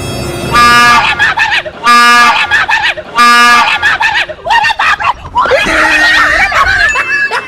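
Three short, very loud blasts of a train horn, each one steady tone about half a second long, sounded about a second and a half apart. Startled people shout between the blasts and break into screaming after them.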